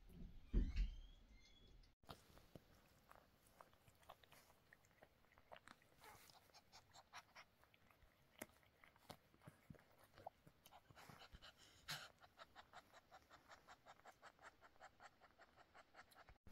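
Mother cat licking her newborn kitten: faint, wet tongue clicks, irregular at first, then a quick steady run of about five licks a second in the second half. A single low thump comes just under a second in.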